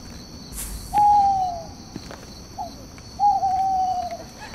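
An owl hooting: two long, slightly falling hoots with a short note between, over steady cricket chirring.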